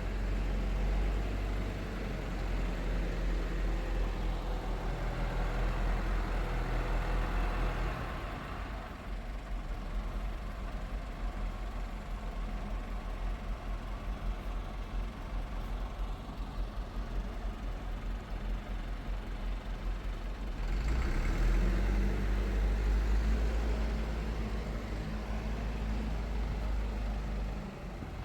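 A motor vehicle's engine running steadily with a low hum, louder for the first several seconds and again for a stretch near the end.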